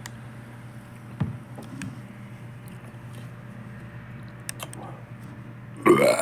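A low, steady hum with a few faint knocks, one sharper click about a second in; near the end a person lets out a loud burp, brought up by drinking cola.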